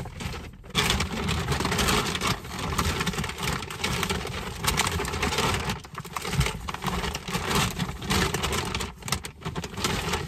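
Plastic shopping bags and packaging rustling and crinkling as purchases are rummaged through and pulled out, with irregular crackles throughout.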